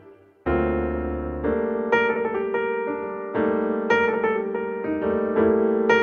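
Background piano music. A low chord comes in about half a second in, then a gentle melody of single struck notes.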